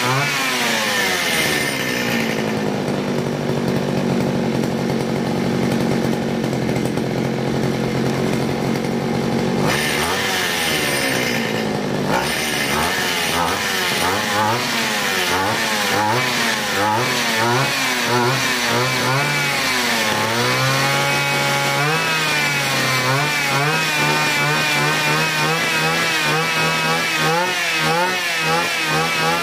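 Two-stroke grass-trimmer engine running and throttled from a radio transmitter. It drops to a steady idle for several seconds, then revs up and down repeatedly, ending at a higher, wavering speed.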